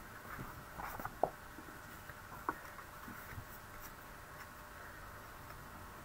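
Pieces of card stock handled and laid down on a table: faint rustling and a few light taps, the sharpest a little over a second in.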